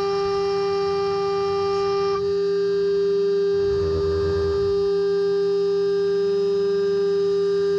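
CNC router spindle turning a DIATOP D301 diamond-plate nesting bit at 24,000 rpm as it cuts 18 mm birch plywood in a single pass. It makes a loud, steady, high whine. Some of the upper tones drop out about two seconds in and return near the end, with a brief lower rumble about four seconds in.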